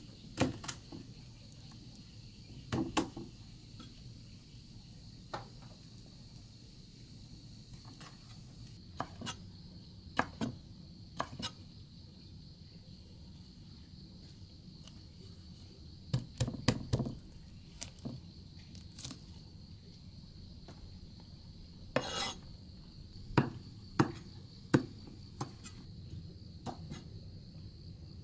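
Steady high-pitched chirring of insects, with about fifteen short clinks and knocks of things being handled scattered through it, the loudest near the start and in two clusters in the second half.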